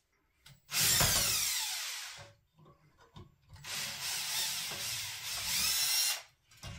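Power drill-driver running in two goes to back out a screw holding the old sink unit to the wall: a first run of about a second and a half with its whine falling in pitch, then a longer run of about two and a half seconds whose whine rises near the end.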